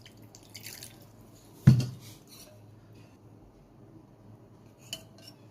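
A cat food bowl knocked down on the floor once, loudly, about two seconds in, then a lighter clink near the end, with faint scraping of dish sounds between.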